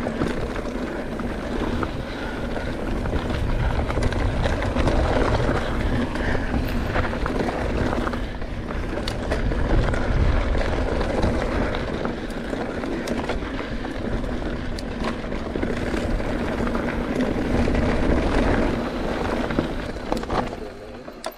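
Mountain bike riding fast down a dirt trail: wind rushes over the camera microphone, the tyres rumble on the dirt, and the bike rattles and clicks over bumps. The noise drops near the end as the bike slows.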